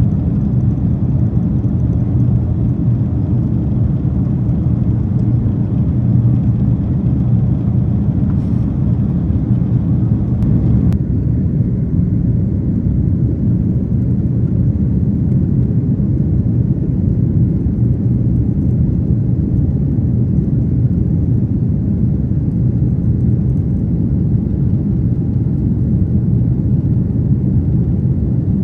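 Steady low rumble of a Boeing 767-400ER's engines and airflow heard inside the cabin during the climb after takeoff.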